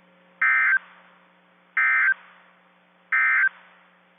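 NOAA Weather Radio's EAS end-of-message code: three short digital data bursts, each about a third of a second long and spaced about a second and a half apart, marking the end of the weekly test broadcast. A faint steady hum from the radio runs underneath.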